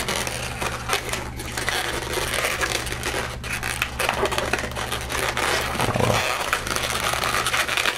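Inflated latex modelling balloon (a dark green 160) being twisted and worked by hand as its end is tied off: dense latex-on-latex rubbing and creaking, with a steady low hum underneath.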